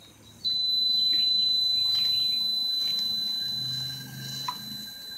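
Digital torque adapter's alarm: a steady high-pitched beep starting about half a second in and growing fainter near the end, signalling that the set torque has been reached while the engine is being turned over by hand.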